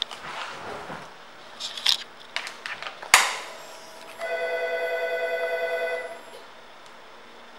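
Clicks from the ignition key and switches of a 2018 Kawasaki Z125 Pro, with a sharp click about three seconds in. Then a steady electric buzz for about two seconds, typical of the fuel-injection pump priming as the ignition is switched on before starting.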